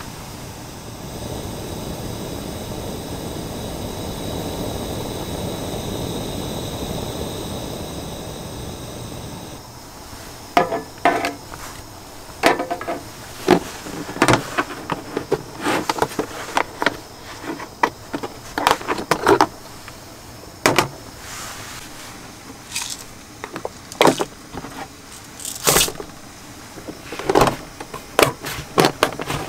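Portable gas camping stove burner hissing steadily for about nine seconds, then cutting off abruptly. After that, a long run of irregular clicks and knocks as a hard plastic case and gear are handled and the case's latches are worked.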